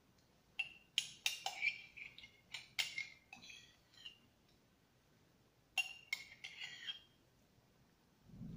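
Metal spoon clinking and scraping against a ceramic mug while scooping ice cream. The quick clinks with a short ring come in two runs: one from about half a second in lasting a few seconds, and a shorter one near six seconds.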